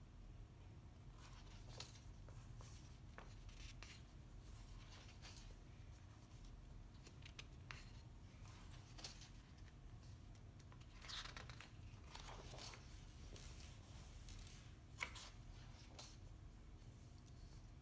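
Pages of a large printed book being turned by hand: faint paper rustling and sliding, with a crisper page flip a little past the middle and a sharp tick a few seconds later, over a low steady room hum.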